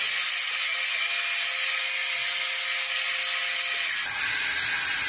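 Small electric hydraulic oil pump of a 1:14 Huina RC excavator running steadily with a high whirring hiss while the boom and bucket are worked by hydraulics; the tone changes about four seconds in.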